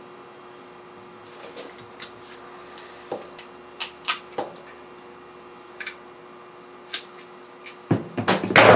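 Parts being handled at a workbench: scattered light clicks and knocks, then a quick run of louder knocks and rattles near the end, over a steady faint hum.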